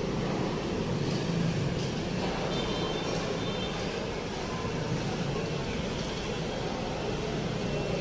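Steady road traffic noise: vehicle engines running and traffic moving on the road beneath an elevated expressway.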